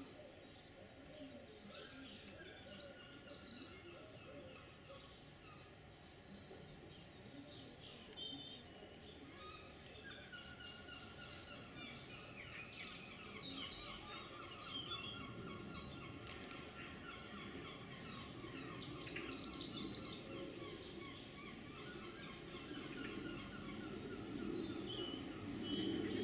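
Small garden birds singing and calling: a steady mix of faint chirps and short song phrases.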